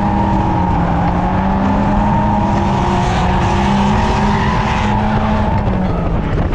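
Turbocharged Mazda Miata four-cylinder engine running hard at fairly steady revs during a drift, with tyres squealing and skidding. The engine has an ongoing misfire in cylinder 4. Near the end the engine note drops away.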